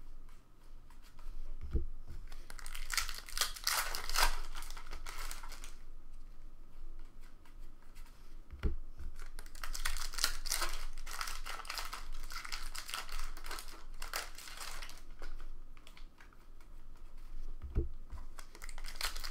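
Trading card packs being torn open and their shiny wrappers crinkled by hand, with the cards rustling as they are handled, in two long spells. Three soft low thumps fall between them.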